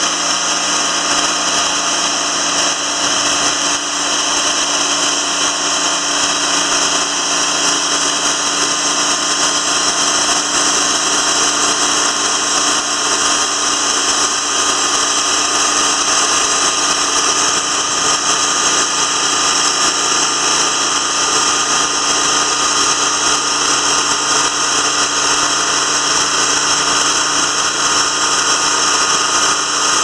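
Timberking 2000 band sawmill running steadily, its engine and band blade sawing through an eastern white pine log.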